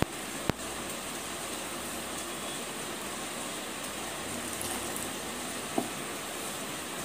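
A hand squeezing and pressing fine clay powder in a pan: a steady soft rustling hiss, with sharp clicks about half a second in and about six seconds in.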